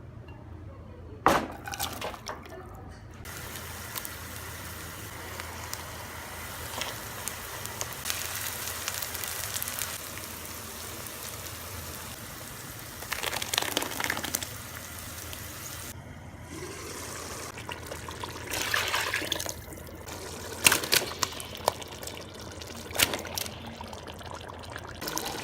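Food sizzling in hot oil in a cooking pan, a steady hiss that swells now and then, with a few sharp knocks.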